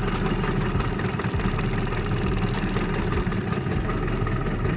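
5 hp Evinrude two-stroke outboard motor running steadily at low trolling speed, a continuous low drone.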